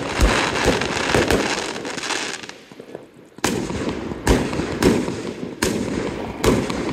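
Aerial fireworks display: shells bursting with loud crackling, a short lull about two and a half seconds in, then five sharp bangs in quick succession, each trailed by crackle.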